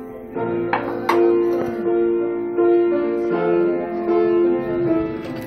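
Instrumental background music: a melody of held notes that change every fraction of a second over a lower line, with a couple of light clicks about a second in.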